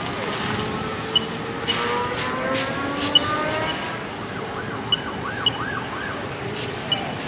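Emergency vehicle siren: a slow rising wail, then a few quick up-and-down yelp cycles about two-thirds of the way in, over a steady background rush. Short, high chirps cut in every second or so and are the loudest sounds.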